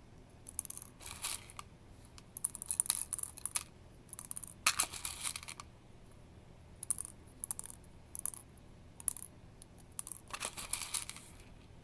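Plastic airsoft BBs dropped into a ping pong ball, clicking and rattling against the thin plastic in irregular bursts.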